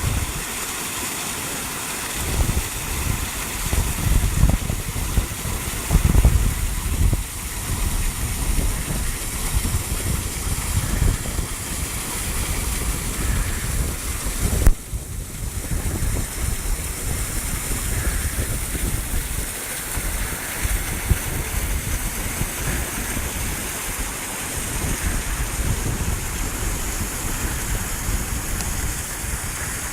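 Waterfall's steady rush of falling water, with gusts of wind rumbling on the microphone and a brief break about halfway through.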